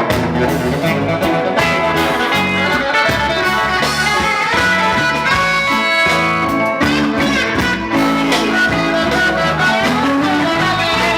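Live reggae band playing an instrumental passage, with guitar to the fore over bass and a steady beat.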